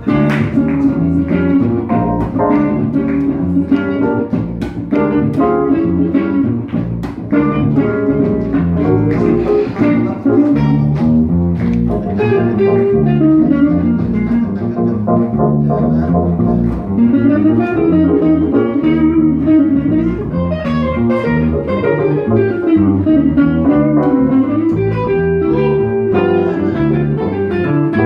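Live jazz band playing a funky groove, with guitar to the fore over upright double bass and electric keyboard.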